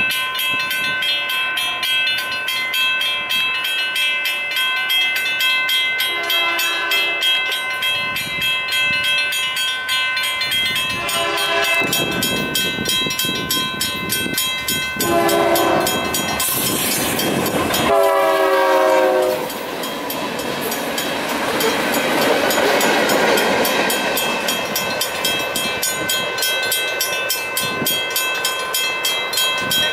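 Railroad grade-crossing bell ringing steadily throughout while a train sounds its horn in four separate blasts, the last one the longest and falling slightly in pitch as the locomotive reaches the crossing. After the horn the train's wheels rumble steadily over the crossing.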